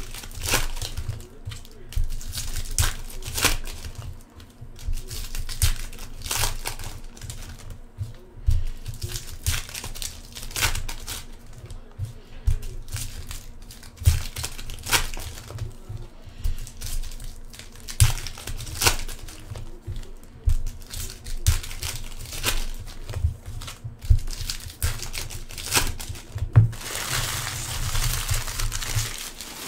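Foil trading-card pack wrappers crinkling and tearing as they are opened by hand, in a rapid, uneven run of sharp crackles. Near the end there is a short, steadier rustle.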